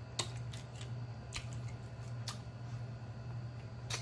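Close-up eating sounds of rotisserie chicken being picked off the bone and eaten: a handful of sharp, scattered clicks and smacks over a steady low hum.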